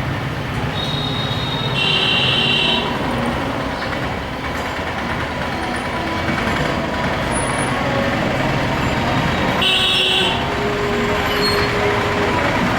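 Busy street traffic noise with vehicle horns honking: a short honk about two seconds in and another about ten seconds in.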